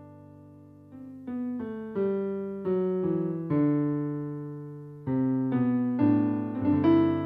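Background music: a solo piano plays slow, separate notes and chords, each struck and left to ring and fade, with a brief pause about a second in.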